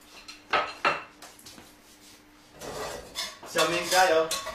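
Kitchenware handled on a counter and stove: two sharp clinks about half a second and one second in. A voice follows near the end.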